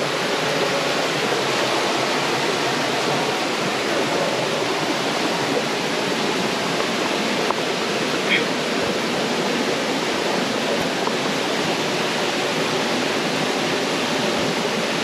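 Steady rush of a rocky jungle stream and waterfall, water pouring and splashing over rocks.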